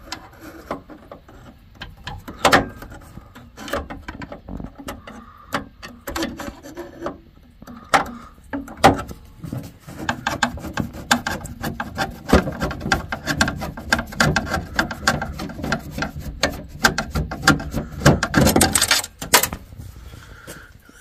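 Hand tools working on a water heater's parts: scattered clicks and knocks, then a dense run of rapid clicking from about halfway through, loudest just before the end.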